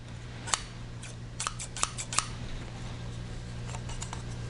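Vampire Tools VT-011 compact electrician's shears worked open and shut by hand, the steel blades giving sharp clicks: a single click, then a quick run of about six, then a few fainter clicks near the end.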